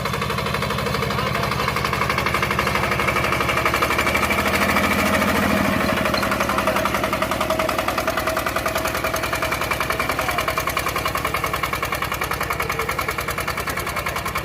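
Single-cylinder Diamond 11 hp diesel engine on a hand tractor running steadily, with a fast, even firing beat.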